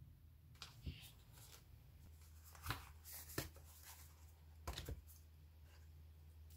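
Faint paper rustles and a few soft knocks as a spiral-bound sketchbook and pen are handled on a cutting mat, heard as about five brief sounds over a low hum.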